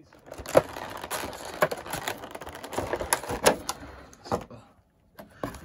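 Stiff clear plastic blister packaging of a trading-card box crackling and clicking as hands pry it open: a run of sharp cracks over crinkly rustling, going quiet for a moment near the end.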